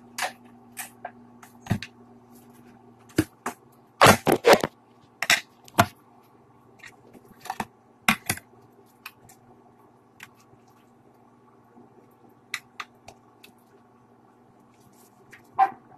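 Plastic bowls and a spoon handled on a kitchen counter: scattered knocks, clinks and scrapes, the loudest cluster about four seconds in, over a faint steady hum.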